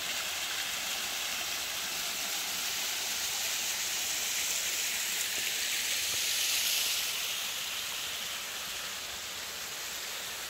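Creek water rushing and splashing down the stepped rock ledges of a small waterfall: a steady rush that swells a little in the middle and cuts off suddenly at the end.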